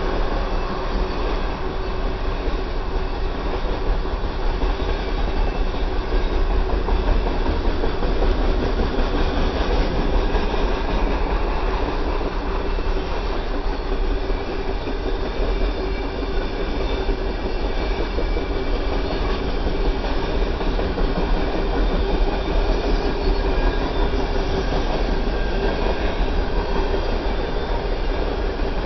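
Freight train's open-top cars rolling steadily past, a continuous, even rumble of steel wheels on rail.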